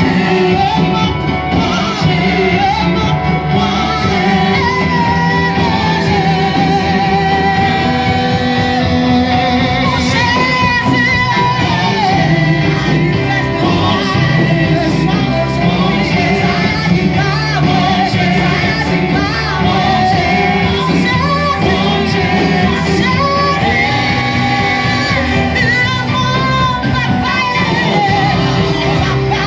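Church worship music: voices singing over steady instrumental backing.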